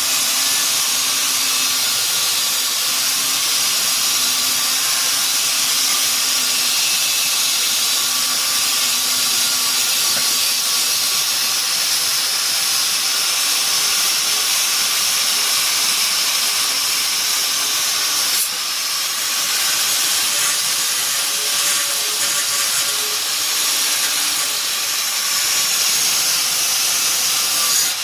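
Steady hiss of a cleaning tool working on a part, with a faint motor tone beneath it. The hiss breaks off for a moment about 18 seconds in, then carries on.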